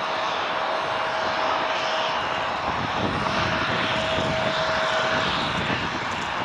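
Boeing 757 jet engines at approach power as the airliner descends with its gear down: a steady whine over broad engine noise. The whine drops out briefly about three seconds in.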